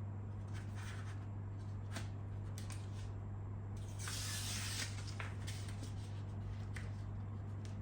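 Vinyl decal being handled and pressed onto a plastic motorcycle fairing: soft scattered rubs and light ticks, with one louder hissing rustle just under a second long about four seconds in, over a steady low hum.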